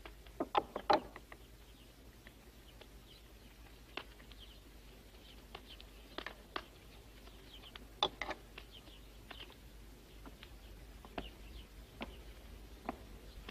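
Spoons and a serving spoon knocking and scraping against earthenware bowls as food is dished out and eaten, in irregular sharp clinks. The loudest clinks come about half a second to a second in and around eight seconds in, with faint high chirps between them.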